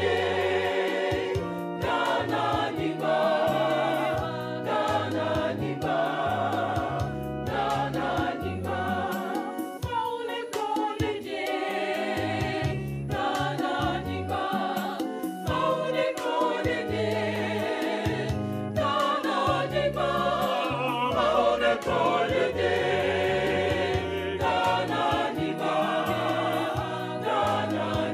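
Background music: voices singing together over a bass line that steps from note to note.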